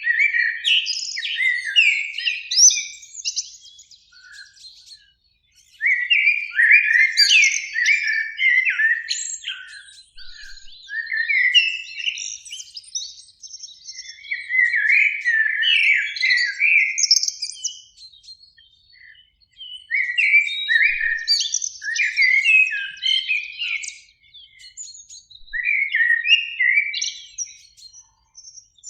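Common blackbirds singing: about six warbled song phrases of fluting, gliding notes, each lasting a few seconds, with short pauses between them.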